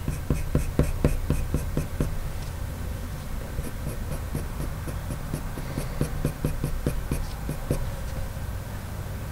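Coloured pencil (Faber-Castell Polychromos, Walnut Brown) scratching on paper in quick short strokes, about five a second, pressed fairly hard with the pencil held upright to lay down dark shading. The strokes come in two runs with a pause of about a second and a half after two seconds, and fade near the end.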